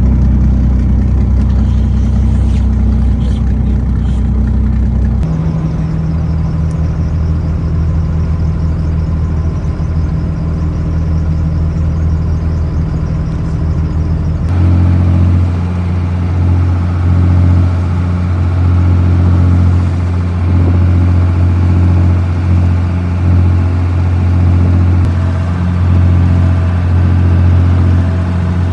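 A fishing boat's engine running steadily under way. Its pitch and tone change abruptly twice, about five seconds in and again about halfway through.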